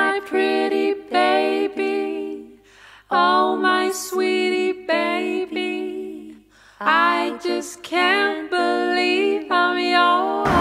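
Background music: a lone voice singing a melody in short phrases without words, with almost no accompaniment.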